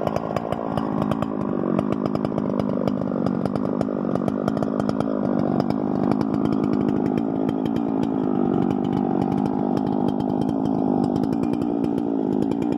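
Chainsaw mounted in a portable chainsaw mill, its engine running steadily without a break.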